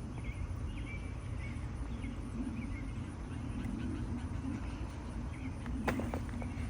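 Hands digging and rummaging through potting soil in a container while harvesting potatoes, over a steady low rumble with faint bird chirps. There is a sharp click about six seconds in.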